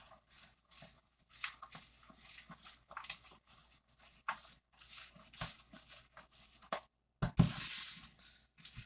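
Hands kneading and squeezing clumpy protein cookie dough in a bowl: short, irregular squishing and rustling sounds as the dry and wet parts are worked together, with a louder rush of noise lasting about a second around seven seconds in.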